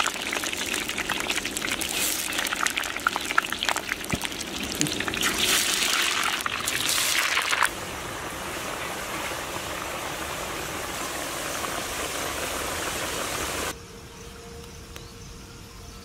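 Potato fries deep-frying in a large iron kadai of hot oil: a dense sizzle with many crackles, loudest in the first half while fresh fries go into the oil, then a softer, steadier sizzle that drops again near the end.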